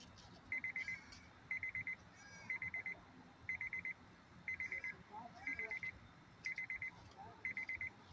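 Car's warning chime sounding with the driver's door open: a quick run of about five high beeps, repeating once a second.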